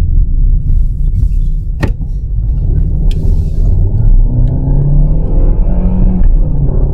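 A car driving, with a steady low rumble. There is a sharp click about two seconds in, and the engine note climbs from about four seconds in.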